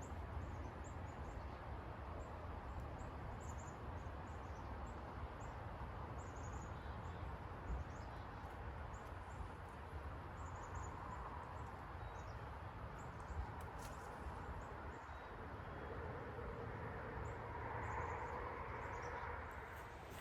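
Small birds chirping repeatedly with short, high calls over a steady low outdoor rumble and hiss, which swells briefly near the end.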